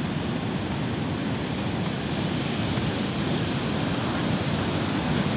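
Ocean surf breaking steadily on a sandy beach, a continuous wash with wind on the microphone.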